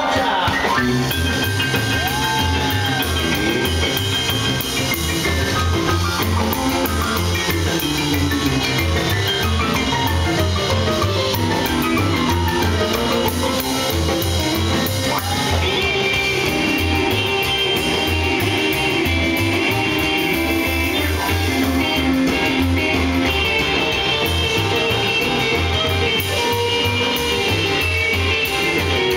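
Live rock and roll band playing: a stage piano pounded hard over a drum kit and electric guitar, with a steady driving beat.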